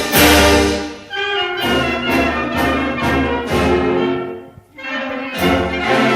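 Orchestral music led by brass, trumpets and trombones, playing accented chords. It breaks off briefly about four and a half seconds in, then resumes.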